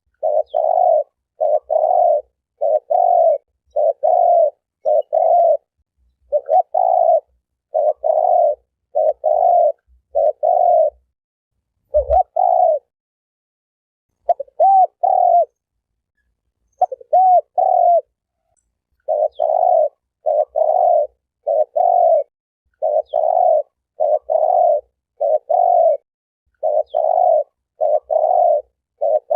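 Spotted dove (terkukur) cooing: a long run of short, low coos in quick groups, with a couple of brief pauses midway.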